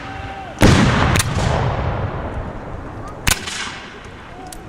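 Black-powder muskets firing in a reenactment battle. A heavy boom with a rolling echo comes just after half a second in, a sharper crack follows right after it, and another crack comes about two seconds later.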